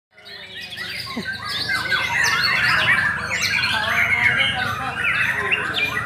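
Many caged songbirds singing at once: a dense, overlapping mix of whistles, trills and chirps, swelling over the first two seconds.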